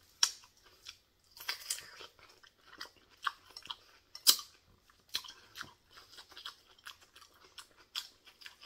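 Close-up wet crunching and chewing of a raw cucumber spear, in irregular sharp crunches, the loudest about four seconds in. Near the end comes a softer bite into a tomato slice.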